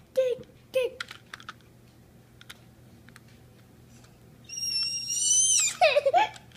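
A toddler's short grunting sounds and a few small clicks of a plastic toy motorcycle being handled, then, about two-thirds through, a long high-pitched squeal that drops in pitch at its end and breaks into short fussing cries.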